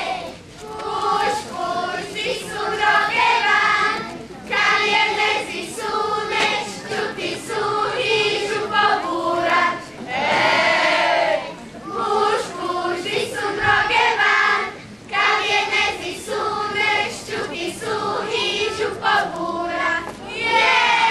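A group of children singing a folk song together in phrases, with a longer held note about halfway through.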